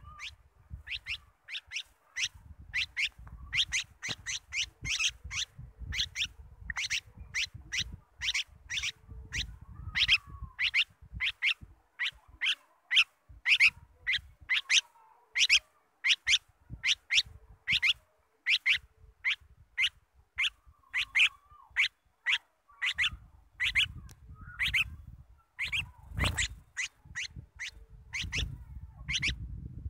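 Bulbul calling: a fast run of short, sharp chirps, about two a second, with a low rumble underneath at times. Near the end there is a single loud thump.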